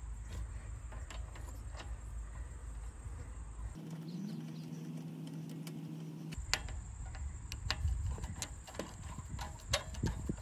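Small metallic clicks and taps as a brass piston stop is threaded into a small engine's spark plug hole and its inner bolt is turned with a flat screwdriver, more frequent in the second half, over a steady low rumble.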